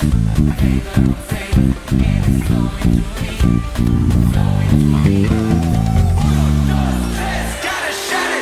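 Electric bass guitar playing a driving bassline in a band mix: quick repeated notes and runs, then a long held low note. The bass drops out near the end, leaving the higher parts of the band.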